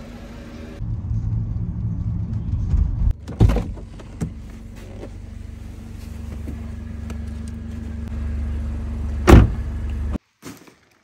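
A car engine idling with a steady low rumble, with a car door thumping shut about three seconds in and again, loudest, near the end, after which the sound cuts off suddenly.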